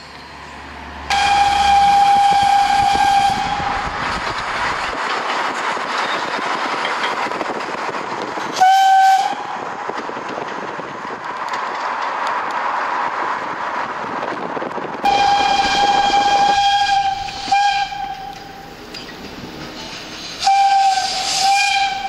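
Steam whistle of the TY42 steam locomotive sounding four times. There is a long blast about a second in, a short blast midway, and two more blasts in the second half. A steady rushing noise fills the gaps between them.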